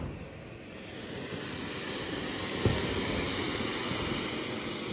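Fountain firework (anar) spraying sparks with a steady hiss, with a single sharp crack about two and a half seconds in.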